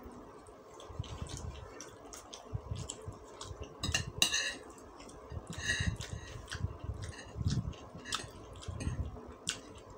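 Metal spoon and fork clinking and scraping on a ceramic plate as fried noodles and egg are stirred and scooped, in many short, irregular taps. Close-miked chewing comes in between the taps.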